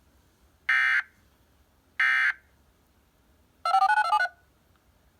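Emergency Alert System end-of-message data bursts: two short, identical digital squawks about a second apart, closing the alert. About a second and a half later comes a rapid string of touch-tone (DTMF) beeps lasting under a second.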